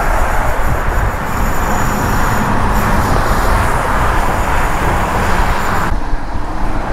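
Road traffic passing on the highway bridge alongside, a steady tyre-and-engine hiss, with wind rumbling on the microphone. The hiss drops suddenly about six seconds in.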